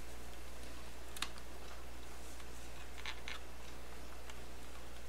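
A few faint small clicks of a 3.5-inch floppy disk's plastic shell being worked apart by hand: one about a second in and two close together a little after three seconds.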